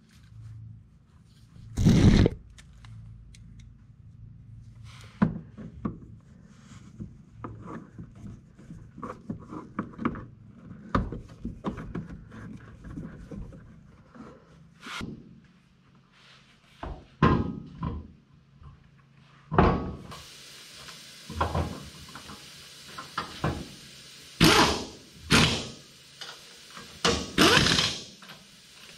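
Irregular knocks, thunks and clicks from handling a Nissan Frontier's plastic wheel well liner and fitting its screws, with louder thunks in the last few seconds.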